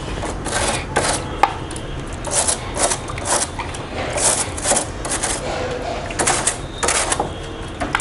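A stiff toothbrush scrubbing the evaporator coil fins of a split air conditioner's indoor unit, in repeated short brushing strokes about two a second.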